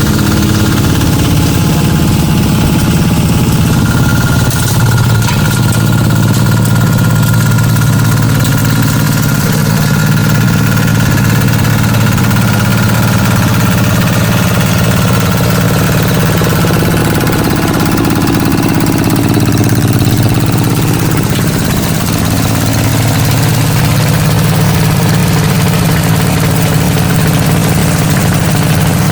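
Waste sorting machine and its conveyor running: a loud, steady mechanical drone with a low hum, easing slightly about two-thirds of the way through before settling back.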